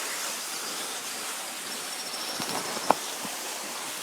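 Steady rushing hiss of a waterfall, with one sharp click or knock about three seconds in.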